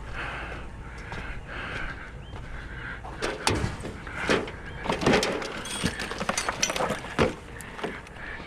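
Scrap metal pieces being handled and dropped into a pickup bed: a run of irregular clanks and knocks over several seconds, with a steady low rumble beneath.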